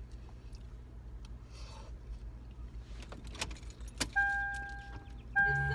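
Low steady hum of a parked car's engine running, with a few clicks and rattles about three to four seconds in. Near the end a steady held tone comes in and music starts to play.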